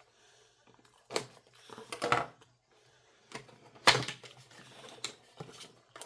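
A small cardboard product box being opened and its contents handled: packaging rustling with several sharp clacks and knocks, the loudest about four seconds in.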